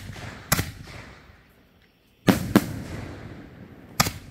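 Aerial firework canister shells going off in a series of sharp bangs: one about half a second in, two loud ones close together just after two seconds, and another near the end. Each bang fades out slowly.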